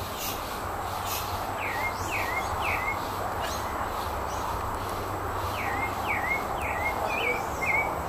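Pale-breasted thrush (sabiá-barranco) calling: short notes that slide down and end in a little upturned hook, three in quick succession about two seconds in and five more from about five and a half seconds on. A steady hiss of background noise runs underneath.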